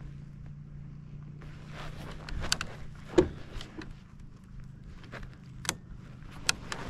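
Scattered crunching footsteps and knocks on a gravelly sand bank, over a low steady hum of an idling snowmobile engine.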